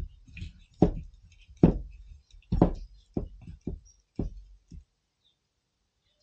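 Dull knocks and thumps from hands and arms working at a table, about nine at irregular intervals over the first five seconds.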